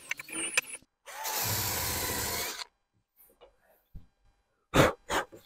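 Electric drill with an abrasive sanding attachment running for about a second and a half as it sands rust off a truck's mirror pole. It then goes quiet, and two sharp knocks near the end are the loudest sounds.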